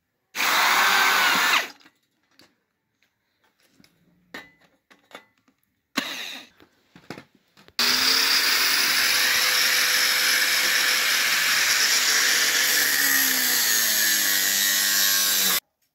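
An electric drill runs for about a second and a half, driving a screw into a rectangular steel tube. A few faint knocks and a short burst follow, then an angle grinder cuts steel steadily for about eight seconds and stops suddenly.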